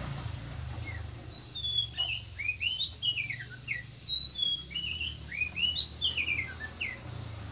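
Songbird singing: a quick, varied run of short chirping notes that slide up and down in pitch, starting about a second in and going on for several seconds.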